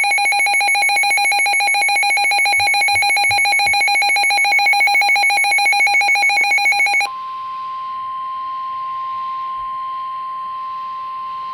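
Emergency Alert System attention signal: a loud, rapidly pulsing electronic alarm tone for about seven seconds. It then switches abruptly to a quieter, steady single-pitch tone, the NOAA Weather Radio warning alarm tone that precedes a warning message.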